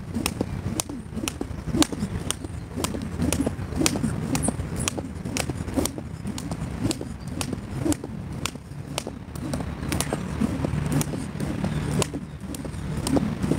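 A jump rope slaps the stone paving about twice a second in a steady skipping rhythm, with soft foot landings. A low, steady rumble runs underneath.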